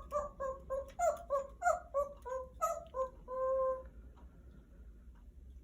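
An animal making a quick string of about a dozen short, pitched calls, the last one held longer.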